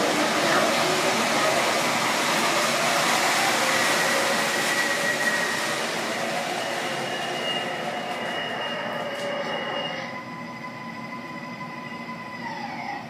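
MTH R142A model subway train running on its track. Rolling noise mixes with the steady whines of its sound system's simulated electric traction motors, which shift in pitch. The sound drops off about ten seconds in, and one whine slides down in pitch near the end.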